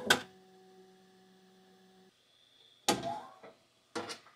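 A single sharp knock, then the Bambu Lab P1S 3D printer's faint steady hum, which cuts off suddenly about two seconds in. A few short knocks and clatter of handling follow near the end.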